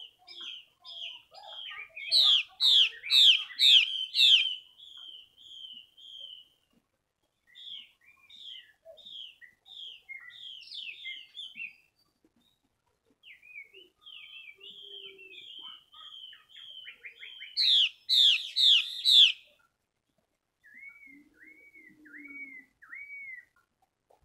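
Chinese hwamei hen calling: runs of quick down-slurred chirps, loudest in two bursts, one about two seconds in and one past the middle, and a run of four arched notes near the end.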